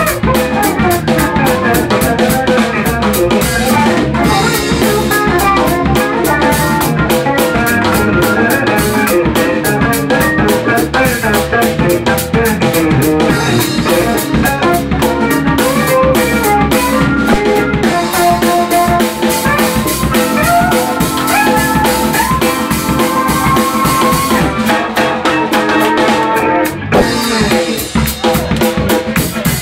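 Live funk-fusion band playing a groove: drum kit with rimshots and bass drum, hand drums, electric bass, and a guitar-like lead line that is played on a six-string F-Bass BN6 through a Roland VB-99 modeling system.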